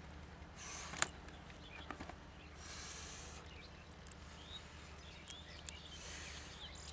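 Bare hands scooping and squeezing wet mud in a waterlogged hole, giving soft squelching, sucking noises with a sharp click just after a second in. Faint bird chirps are heard in the background.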